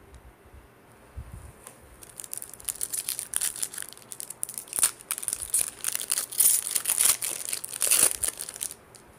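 Foil wrapper of a Topps Series 2 baseball card pack crinkling as it is torn open and peeled back by hand. The dense crackle starts about two seconds in and stops suddenly shortly before the end.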